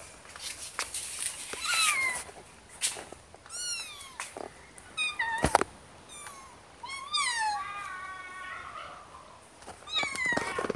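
Kittens mewing again and again, a string of short, high calls that mostly fall in pitch, with a sharp knock about halfway through.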